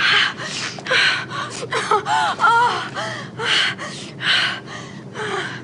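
A woman gasping and moaning in quick breathy bursts, about two a second, with a few high moans rising and falling in pitch about halfway through. She is shuddering through an orgasm set off by a sneeze.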